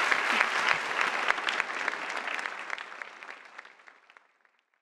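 Audience applauding, a dense patter of many hands clapping that fades away over the last couple of seconds.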